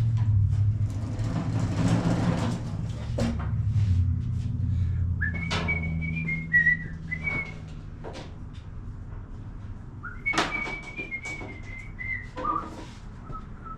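A man whistling a few short phrases of a tune, with scattered clicks and knocks of handling tools and the charger clamps. Under it a low steady hum runs for the first eight seconds or so, then stops.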